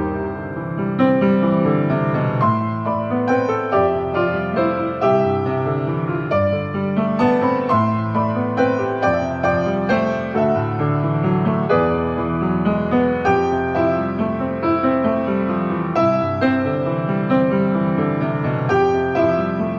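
Background music: a gentle piano piece with struck notes in a steady, flowing rhythm.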